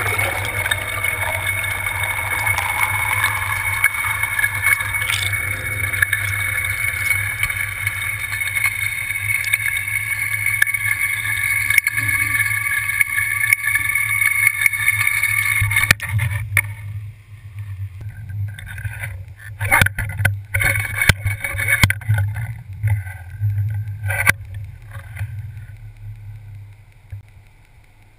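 A boat's motor and propeller heard underwater: a steady low hum with high whining tones, which cut off about sixteen seconds in. After that come scattered knocks and an uneven hum.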